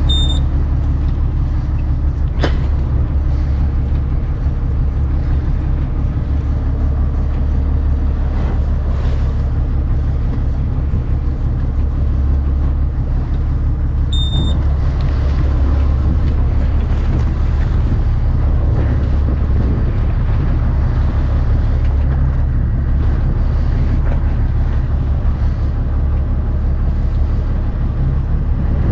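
Fishing boat's engine running with a steady low drone. Short electronic beeps from a BJ5000 jigging machine's keypad as it is pressed, at the start and again about fourteen seconds in, with a single sharp click a couple of seconds in.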